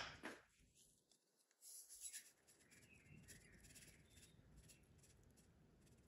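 Near silence with a few faint light ticks and rustles: sesame seeds being sprinkled over a bowl of bibimbap.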